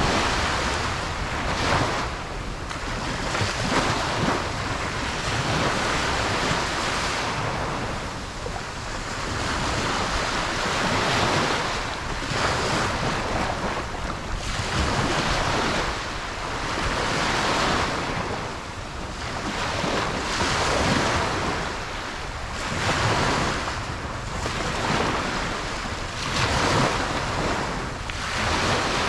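Ocean surf breaking and washing up a beach: a continuous hiss of water that surges with each wave every few seconds.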